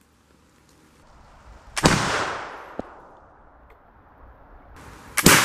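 Two flintlock rifle shots about three and a half seconds apart, each a sharp report that rings off and fades.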